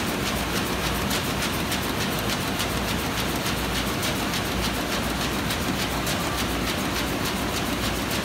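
2005 Komori LS640+CX six-colour sheetfed offset press running: a steady mechanical din with a fast, even clatter several times a second.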